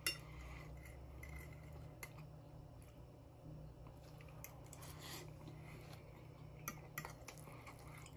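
A metal fork clinking and scraping against a ceramic dinner plate while cutting and scooping food. There are a few faint, sharp clicks: one at the start, one about two seconds in, one about five seconds in, and two close together near the end.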